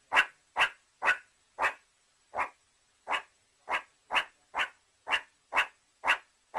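A meerkat giving a run of short, sharp barking calls, about two a second, with a slightly longer pause about two seconds in.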